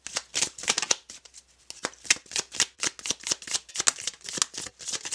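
A deck of oracle cards being shuffled by hand: a quick, irregular run of papery card flicks and clicks, with a short pause a little over a second in.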